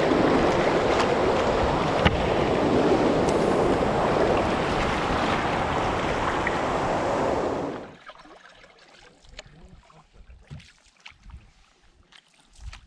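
Rushing white water of a river rapid around an open canoe, loud and steady, cutting off suddenly about eight seconds in. After that only faint paddle splashes on calm water remain.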